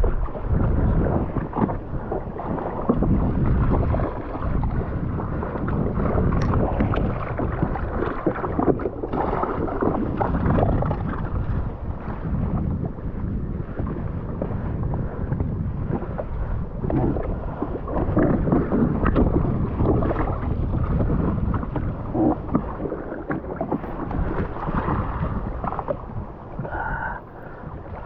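Sea water sloshing and slapping against the hull of a jet ski at sea, with wind buffeting the microphone in uneven gusts.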